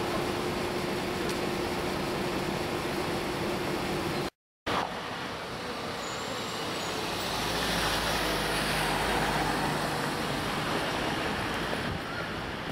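City street traffic: a steady rumble of road vehicles, which grows louder and deeper about seven seconds in as a vehicle passes close by. The sound cuts out for about half a second roughly four seconds in.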